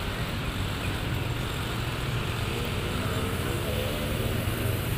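Road traffic of motorcycles, scooters and cars crossing a railway level crossing, engines running in a steady rumble, with one engine speeding up past the middle.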